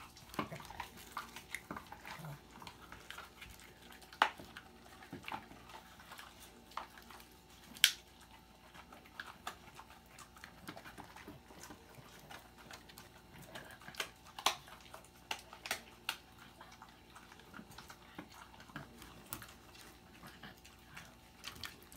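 Small dog gnawing and crunching on a dried salmon-skin chew, a scatter of small crackles and clicks with a few sharper snaps.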